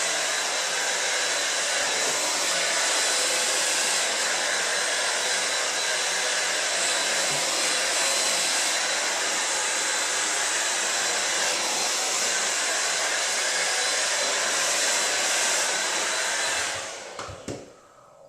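Handheld hair dryer running steadily on a hair-smoothing blow-dry, an even blowing with a faint high whine. It is switched off near the end and dies away over about a second, with a couple of small knocks.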